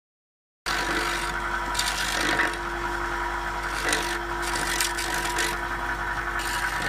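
Paoloni old-brick cleaning machine running, its spinning head of steel scraper blades and brass wire brushes humming steadily. Several times an old brick is pressed against it, giving harsh rasping scrapes as the blades grind cement mortar off the brick.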